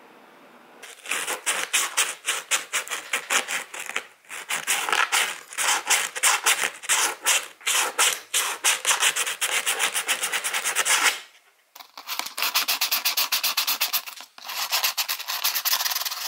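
Hand sanding with sandpaper around the rim of a hole cut in a clear plastic tub, in quick back-and-forth scraping strokes, several a second. The strokes break off briefly about eleven seconds in, then start again. The sanding smooths off the sharp edges left by the hole saw and the Dremel.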